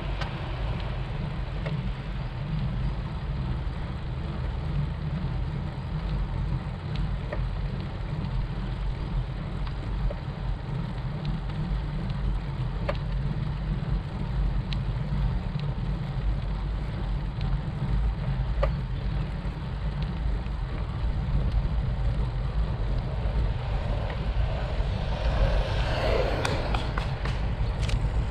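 Steady low wind rumble on the microphone of a camera riding on a bicycle climbing a paved road. A car that has just passed fades away in the first moment, and a few faint clicks come from the bike.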